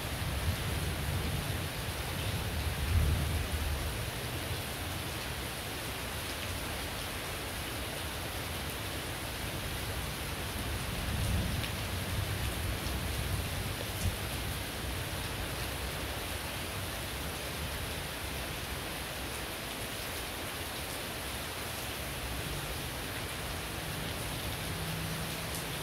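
Heavy rain pouring steadily. Low rumbles of distant thunder swell about three seconds in and again around eleven seconds.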